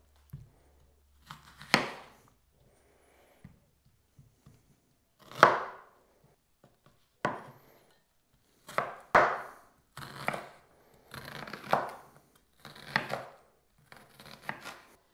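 Knife chopping a red onion on a wooden cutting board: separate knocks at uneven intervals, sparse at first and coming more often in the second half.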